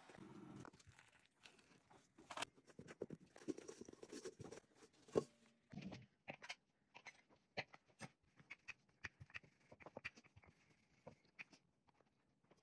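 Faint, irregular clicks and taps of a kitchen knife cutting soft homemade noodle dough against a granite countertop, with one louder knock about five seconds in.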